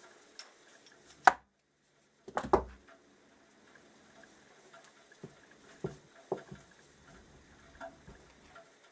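Hand tools and small metal parts clicking and knocking as they are handled on a workbench during disassembly. There is a sharp clack about a second in, a brief moment of dead silence, a cluster of knocks just after, then lighter scattered clicks.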